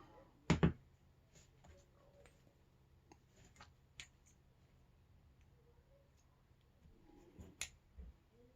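Scattered small clicks and taps from handling the parts of a 5-pin Euro cylinder lock as it is disassembled with a plug follower: a sharp click about half a second in, faint ticks through the middle, and another sharp click followed by a dull knock near the end.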